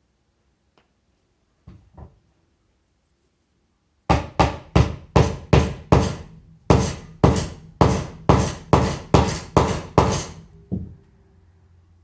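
A hammer striking a wheelchair caster bearing: a run of about eighteen sharp blows at roughly three a second, beginning about four seconds in and stopping after about six seconds. There are a couple of light knocks before the run and one after it.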